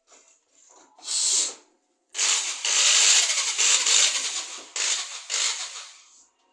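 Power drill running in bursts as it bores: a short burst about a second in, then a longer run of about two and a half seconds and two shorter ones.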